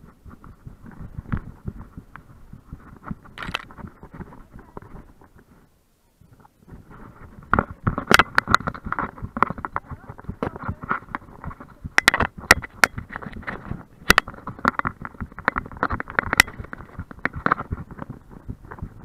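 Camera mounted on a running dog's back, jostling and knocking in its mount: a rapid, uneven stream of thumps and rubbing with sharp clicks. It cuts out briefly about six seconds in, then gets louder and busier.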